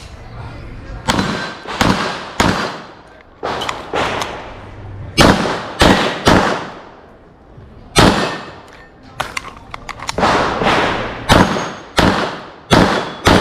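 Pistol shots from a competitor firing a practical shooting stage: about a dozen sharp shots in irregular clusters of two or three with short pauses between, each followed by a brief echo.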